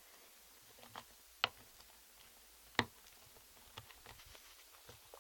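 Faint, scattered clicks and taps, the two sharpest about a second and a half and nearly three seconds in: a spoon knocking against the bowl while stirring slime.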